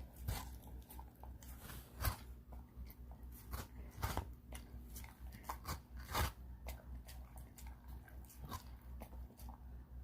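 A pit bull chewing and crunching on watermelon, with many irregular wet bites and crunches.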